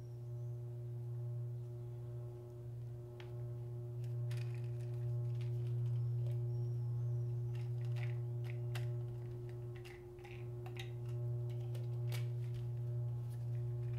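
A steady low hum with a fainter held tone above it. From about three seconds in come scattered small clicks and taps of hands handling a small white plastic container, with a few faint high chirps.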